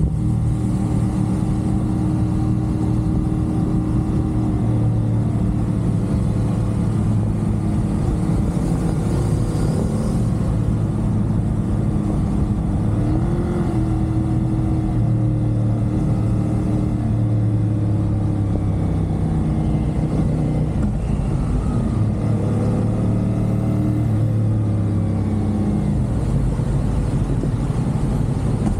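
CFMOTO 450SR's parallel-twin engine running at steady expressway cruising speed, its note rising and falling slightly with the throttle, over a constant rush of road noise.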